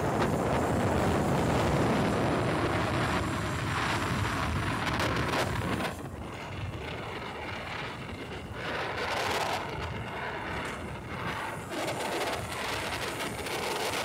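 Wind rushing over the microphone with tyre and road noise from a converted electric motorcycle on the move, with no engine running. The rush is steady and drops in level about six seconds in.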